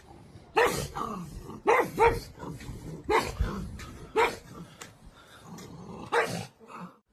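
A dog barking: about six loud, separate barks spread unevenly over six seconds.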